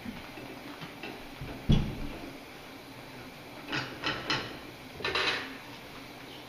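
Kitchenware being handled: one loud knock under two seconds in, then a few light clinks and a short scrape, like dishes and utensils being set down and moved.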